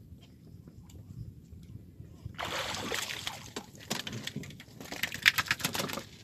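A hooked Spanish mackerel splashing and thrashing at the side of a small wooden boat as it is hauled in on a handline and lifted aboard, with a run of sharp slaps toward the end.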